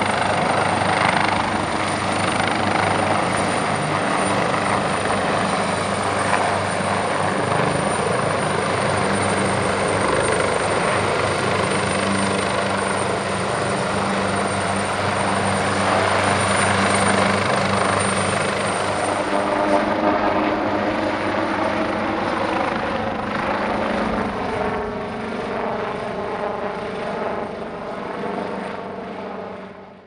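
Japan Coast Guard helicopter running overhead: dense, steady rotor and engine noise with a thin high whine. It grows quieter in the last few seconds, with its pitch shifting.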